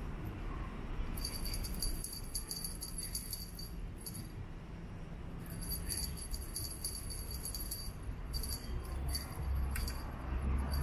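Small bell on a cat teaser toy jingling in quick runs as the toy is jiggled, stopping and starting every few seconds. A low rumble underneath swells near the end.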